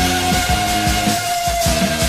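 1977 punk rock record playing: electric guitar, bass and drums, with one long high note held and sagging slightly near the end.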